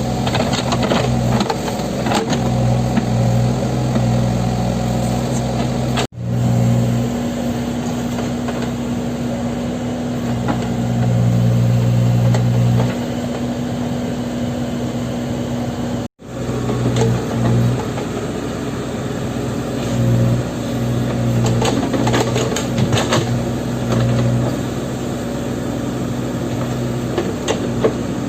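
Backhoe loader's diesel engine running under working load, its note swelling and easing every few seconds, with scattered short knocks. The sound drops out for an instant twice.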